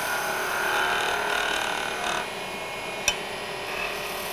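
Wood lathe running with a skew chisel taking a light finishing cut on a pen blank turning on a pen mandrel, a steady hiss that stops about two seconds in. A single sharp click about three seconds in.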